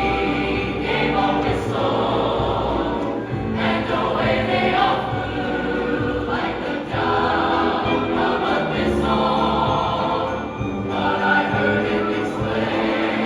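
A choir singing a Christmas song over an instrumental accompaniment with a steady bass line.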